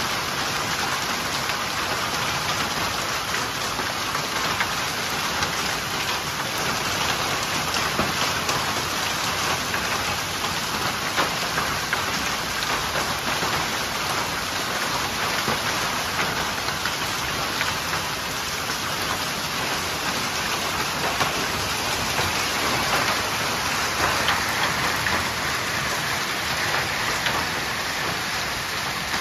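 Heavy downpour with hail pelting an asphalt yard: a dense, steady hiss of rain with many small sharp ticks of hailstones striking.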